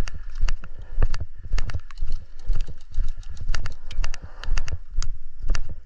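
Footsteps at a steady pace of about two a second on hard ground, each with a heavy thud, and loose kit clicking and rattling between the steps.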